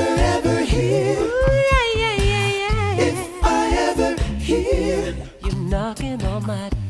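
Pop song playing: voices singing a wavering melody, one note held about two seconds in, over a bass line and a regular drum beat.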